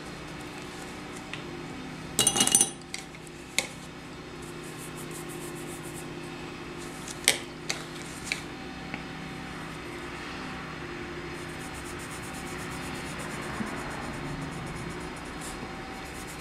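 Small hard objects clattering on a tabletop about two seconds in, then a few light clicks and taps: a pen-style eraser being set down and a colored pencil picked up. A steady low hum runs underneath.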